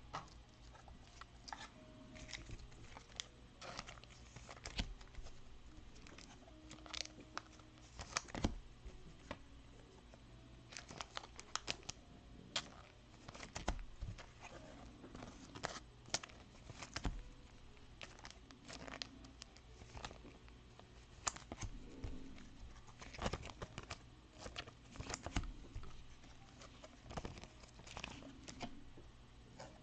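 Clear plastic trading-card pack wrappers being torn open and crinkled by hand, a quiet irregular crackling with sharp little clicks throughout.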